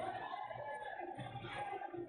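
Faint stadium crowd noise at a Muay Thai bout, with ringside music faintly underneath.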